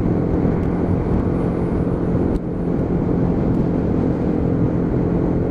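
Lexmoto Venom 125 motorcycle's single-cylinder engine running at a steady cruise of about 40 mph, with wind and road noise on the microphone.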